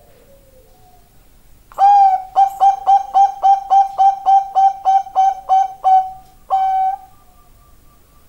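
Bangkok-type zebra dove (perkutut) singing its cooing song: one long note, then a quick run of about a dozen short clipped coos at roughly three a second, ending on a long held note.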